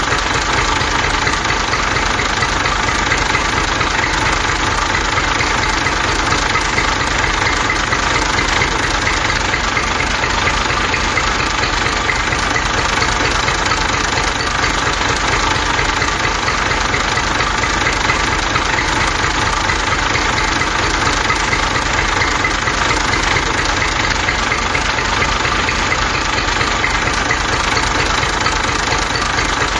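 Engine running steadily at idle with a rapid, even knocking pulse that does not change.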